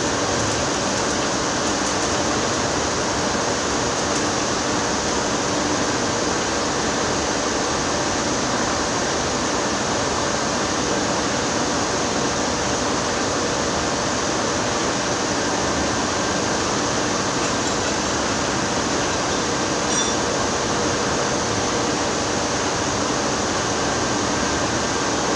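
Steady industrial machinery noise: an even roar with a few faint humming tones.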